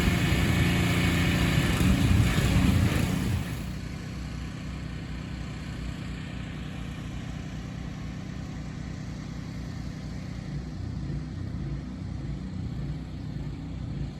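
Construction machinery engines running: a loud, steady engine for the first three and a half seconds, then an abrupt change to a quieter, steady low engine hum.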